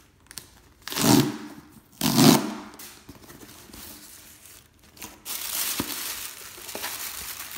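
Packaging being torn open by hand: two loud rips about a second apart, then steady crinkling and rustling of wrapping from about five seconds in.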